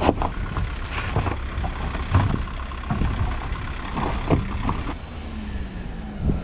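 Cars driving slowly over a rough track strewn with rocks and boulders: engines running under load, with repeated knocks and crunches from tyres and suspension meeting stones.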